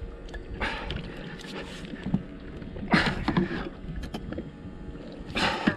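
Heavy breaths of an exhausted angler straining against a hooked yellowfin tuna, three short breathy gasps about two and a half seconds apart, over the steady wash of sea water around a kayak.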